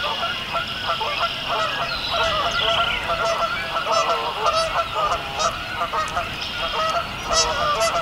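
Flock of Canada geese honking and clucking, many calls overlapping with no pause. Behind them spring peepers and red-winged blackbirds call high.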